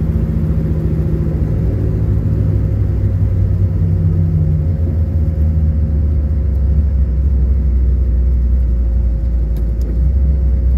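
Car engine and road noise heard from inside the cabin while driving: a steady low drone whose engine note drops lower about four seconds in.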